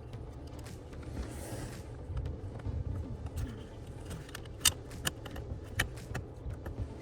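Scattered small metallic clicks and taps of hand work with tools and fasteners, with one sharper click a little past the middle, over a steady low hum.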